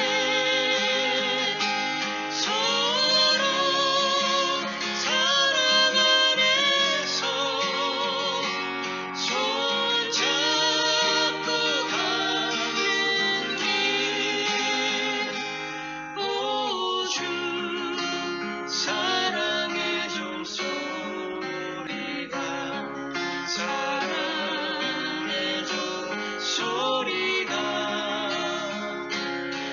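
A Korean gospel song: a woman singing a slow melody with vibrato over acoustic guitar accompaniment.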